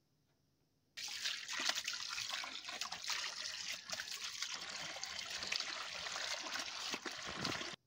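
Cold tap water running onto boiled turnip greens in a plastic basket, splashing as a hand rinses and squeezes them. The water starts about a second in and stops abruptly near the end.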